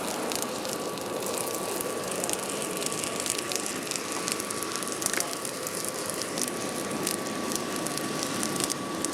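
Charcoal fire burning in a small hearth furnace under a forced air blast: a steady rush thick with fast, irregular crackling, and a thin steady whine.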